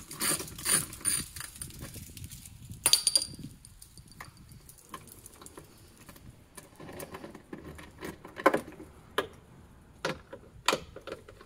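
Socket ratchet clicking for about a second as a small bolt is loosened, then scattered light metallic clinks and taps, with a sharp clatter about three seconds in, as the loose bolts and the tool are handled.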